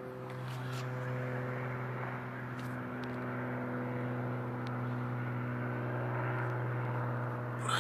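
Airplane flying overhead at a distance: a steady drone over a constant low hum.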